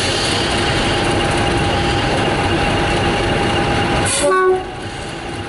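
Class 50 diesel locomotive moving slowly into the platform: a loud, steady sound with held tones that drops away suddenly a little over four seconds in.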